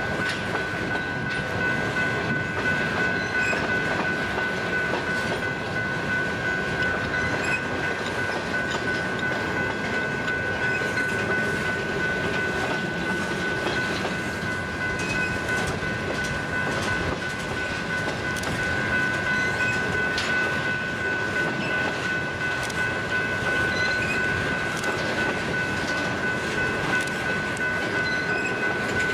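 Train rolling past, its wheels clicking over the rail joints, with a steady high-pitched whine throughout.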